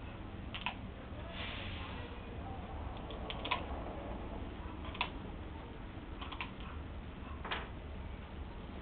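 Soft breaths blown through a plastic soap-bubble wand, with a few scattered light clicks and taps over a low steady rumble.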